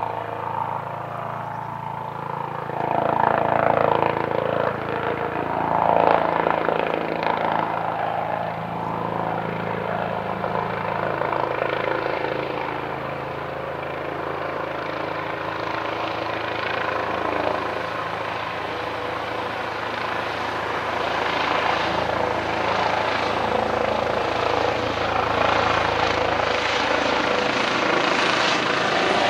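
Eurocopter EC135 police helicopter circling overhead: its twin-turbine engines and rotor run steadily. There is a louder swell of noise a few seconds in, and the sound grows louder toward the end as the helicopter comes nearly overhead.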